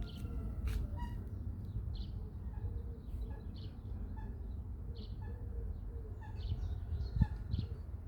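Small birds chirping, short high calls repeating about once a second, over a steady low rumble of wind on the microphone, with a couple of sharp clicks.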